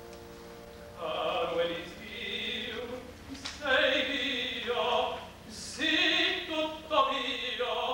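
A tenor singing opera in Italian with piano accompaniment, in short phrases separated by brief pauses, after a held chord at the start.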